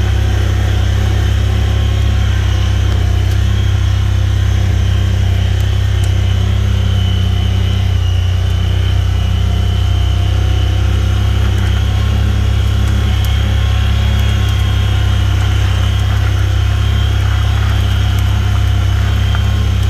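Vehicle engine and road noise as it drives at a steady pace along a snowy dirt track, a constant low drone with a faint high whine above it.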